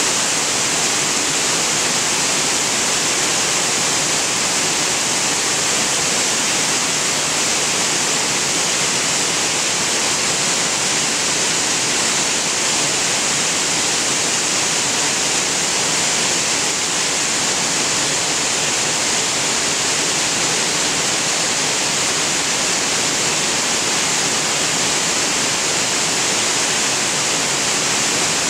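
Large waterfall pouring down tiers of rock ledges: a steady, loud rush of falling water.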